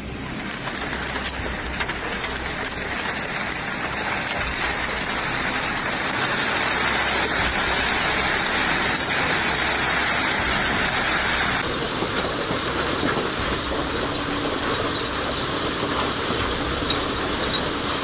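Storm noise: strong wind and a heavy downpour make a dense rushing sound that builds over the first few seconds. About twelve seconds in it cuts to another recording, a steady downpour pelting a swimming pool and yard.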